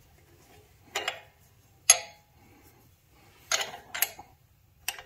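A 10 mm wrench clinking on a steel nut and bolt as the nut is tightened on a motorcycle's adjustable side stand, the bolt held with an Allen key: about five short metallic clinks at uneven intervals.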